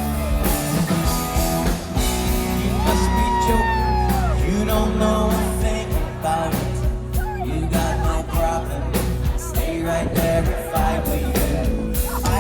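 Live pop-rock band playing with a sung lead vocal over drums and guitars, loud and steady with a regular beat.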